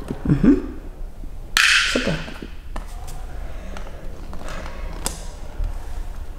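A girl's brief wordless vocal sounds: a short low grunt near the start, then a breathy exhale with a short voiced sound about a second and a half in, over a steady low hum.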